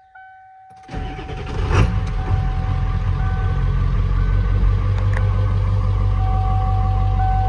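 A 7.3 Power Stroke turbo-diesel V8 starting: it cranks about a second in, catches, and settles into a steady idle.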